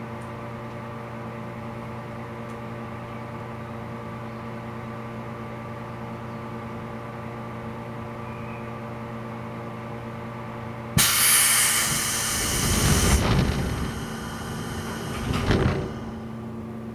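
A JR Kyushu 415 series electric train stands still with a steady electrical hum from its equipment. About eleven seconds in, a click is followed by a loud hiss of compressed air lasting about two seconds, with some low rumble. A shorter burst comes about four seconds later.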